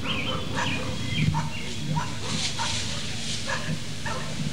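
Dogs barking in short, irregular barks, a few a second, with the hiss of a garden hose nozzle spraying water in the middle.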